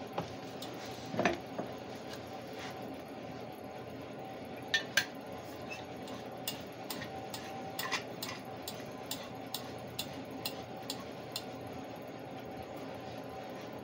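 A few knocks of items being moved on a workbench, then a regular run of sharp clicks, about two a second, from the igniter of a handheld butane torch being worked to light it.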